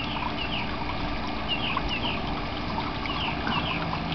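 Steady trickle of water, with short, high, falling bird chirps that come in pairs every second or two.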